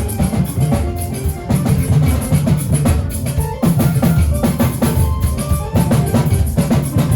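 A band playing, with the drum kit to the fore: bass drum and snare hits over a heavy bass line and other instruments.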